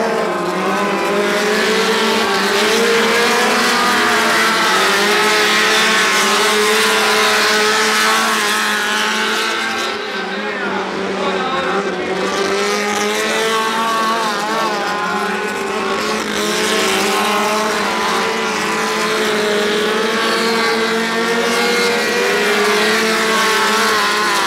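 Several dirt-track speedway race car engines running hard at high revs, their pitch wavering up and down continuously as they lap.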